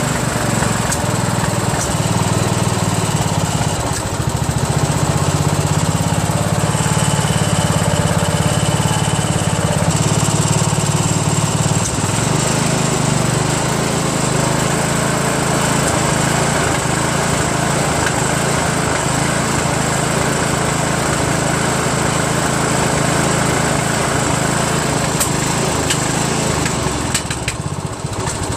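Craftsman LT1000 lawn tractor's 15.5 HP Briggs & Stratton engine running steadily, dipping briefly near the end.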